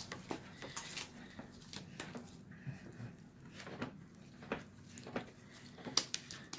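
Scattered soft clicks and small wet snaps, one every half second to second, from hands working a sticky, runny slime made of clear glue, paint and Tide.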